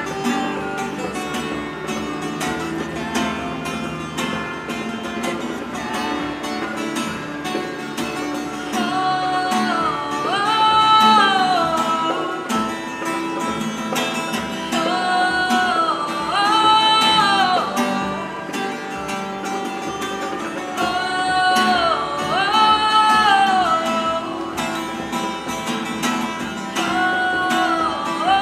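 A woman singing to her own strummed acoustic guitar. A sung phrase with sliding, held notes comes back about every six seconds over the steady strumming.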